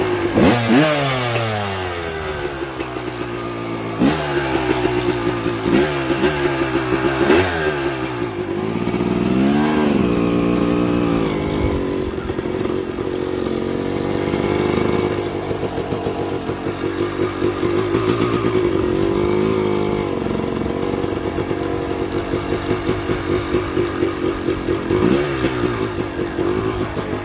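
Dirt bike engine starting, then blipped several times in the first ten seconds, each rev dropping back down, before settling into a steady idle with a few light revs.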